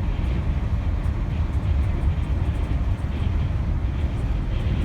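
Steady low rumble of wind and road noise inside a moving vehicle at highway speed, the wind gusting at 60 mph or more.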